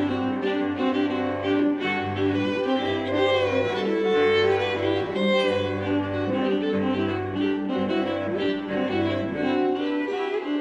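String quartet of two violins, viola and cello playing contemporary classical music: the cello holds long low notes beneath quick, rhythmic repeated bowing from the upper strings. The low cello notes drop out near the end.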